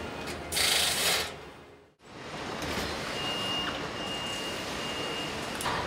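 Pneumatic hand tool on an assembly line giving a short loud hiss of air, under a second long. Then steady assembly-plant machinery noise with a thin high tone held for about two seconds.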